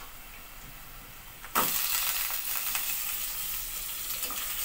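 Raw chicken pieces dropped with a thud into hot oil and fried onions in a steel pot about a second and a half in, setting off loud, steady sizzling that continues after a faint sizzle beforehand.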